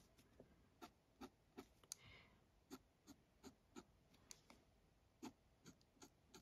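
Faint, quick ticks and scratches of a fine-tip pen on paper as short strokes are drawn, about two or three a second, with one slightly longer stroke about two seconds in.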